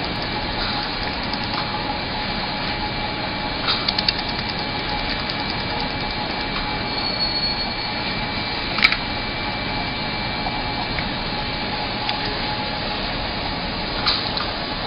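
YAG laser spot welder running with a steady whirring noise, broken by a few short runs of sharp ticks and one loud snap about nine seconds in, as the laser fires pulses to tack a thin metal letter strip.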